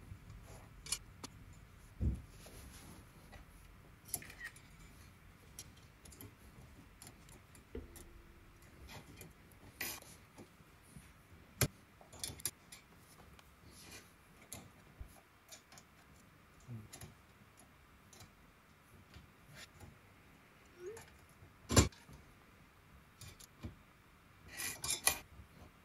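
Scattered clicks, taps and light metallic clinks of hand work on an aluminium extrusion frame and steel linear rail, as 3D-printed rail-centering guides are fitted. There is a sharp knock about 22 seconds in and a quick run of clicks near the end.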